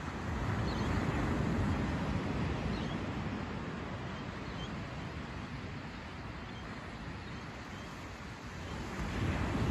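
Small waves breaking on a sandy beach: the wash of the surf swells about half a second in, eases off, then swells again near the end.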